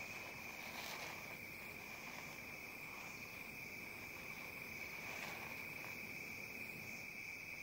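Crickets trilling faintly in one steady, unbroken high note.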